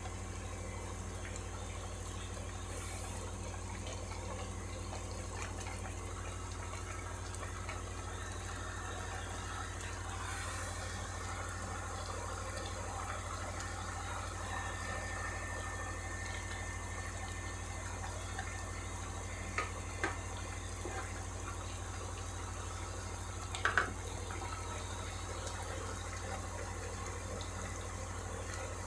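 A wok of vegetable broth simmering, a steady bubbling hiss over a constant low hum. A few brief clicks stand out in the last third, the loudest near the end.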